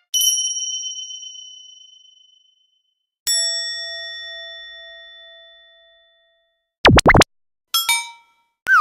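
A string of stock sound effects played one after another: a high ding ringing out, then about three seconds in a deeper bell-like ding that rings for about three seconds. Near the end come quick up-and-down sweeps, a short chime and the start of a falling whistle.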